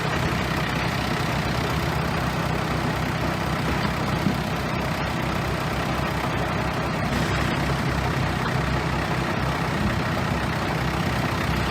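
Bulldozer's diesel engine running steadily with a low, even hum.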